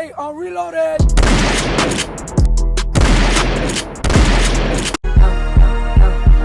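Rapid gunfire, many shots close together, mixed with music for about four seconds. It cuts off suddenly into a hip-hop beat with a heavy, evenly spaced kick drum.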